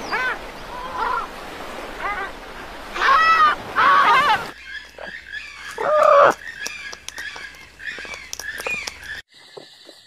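African penguins braying, a series of repeated honking calls that rise and fall. About four and a half seconds in, the sound changes to a black cockatoo calling, with one loud call about six seconds in.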